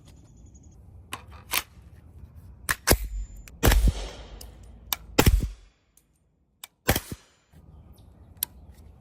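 Suppressed AR-15 rifle in .300 Blackout firing single semi-automatic shots, sharp cracks at irregular spacing, about eight in all, the loudest around the middle.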